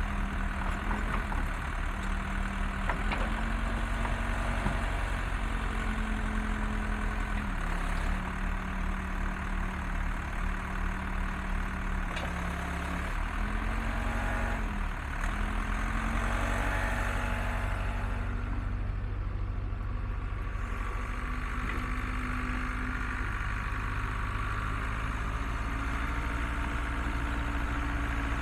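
Case 580C backhoe's engine running, its speed shifting up and down a few times and picking up near the end.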